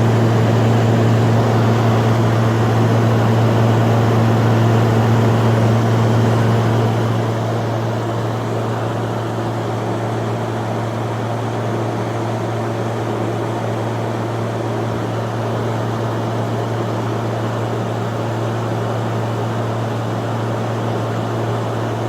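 LG 12,000 BTU air conditioner running, its compressor giving a steady low hum under the rush of the condenser fan. The sound drops a little about seven seconds in.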